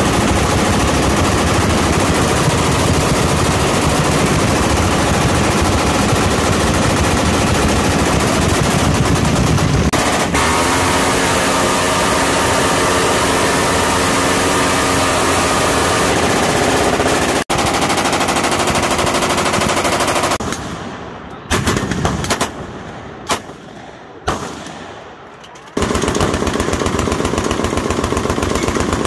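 Minigun firing continuously for about twenty seconds. This is followed by several separate loud bangs with short gaps, and then a Thompson submachine gun firing full-auto near the end.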